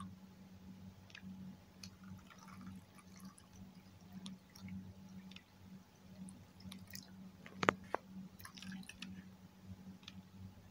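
Milk and yogurt mixture poured from a stainless steel bowl into setting containers: faint trickling and dripping of thick liquid with light clicks, the sharpest about three quarters of the way through. A steady low hum runs underneath.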